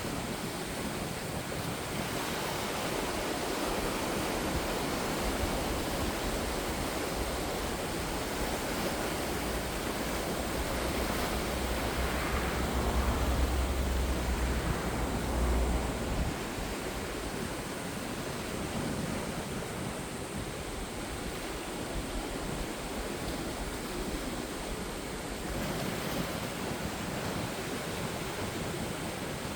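Ocean surf: waves washing onto the shore in a continuous rushing hiss, swelling louder with a deep rumble about halfway through as a bigger wave breaks.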